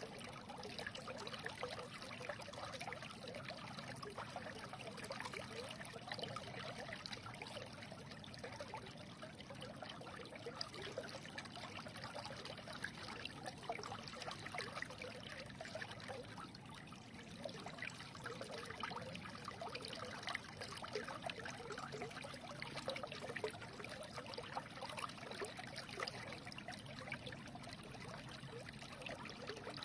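A small stream running and trickling steadily over stones, with many small splashes and gurgles.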